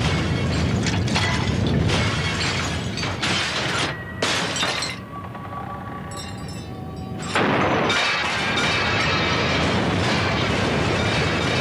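Staged earthquake sound effects: a deep rumble with crashing objects and breaking glass, easing off for about two seconds midway, then surging back suddenly with glass shattering over the rumble.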